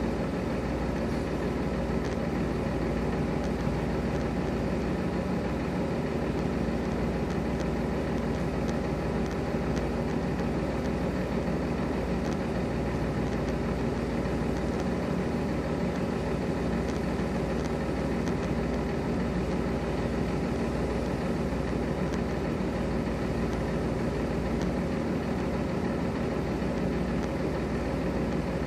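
Heavy diesel semi-truck engine idling steadily, a constant low hum that does not change.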